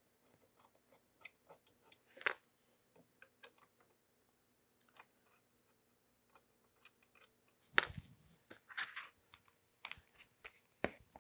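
Light clicks and taps of a metal display bracket and small hex bolts being handled and started by hand on a 3D printer frame, with a few sharper knocks, the loudest nearly eight seconds in.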